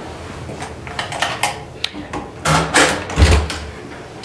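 A room door and its latch being handled: a string of sharp clicks and knocks, with a heavier thump about three seconds in as the door swings.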